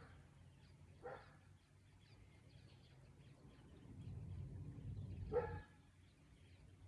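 Two short, faint animal calls, one about a second in and one around five seconds, over a low rumble that swells from about four seconds.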